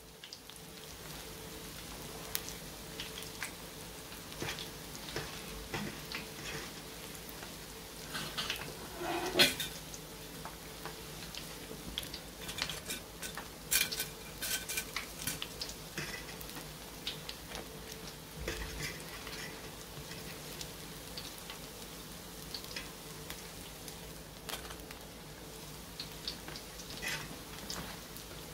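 Stuffed qatayef frying in hot oil: a steady sizzle with many scattered sharp crackles and clicks, including metal clinks of a fork and wire skimmer against the pan and plate as the pastries are turned and lifted out.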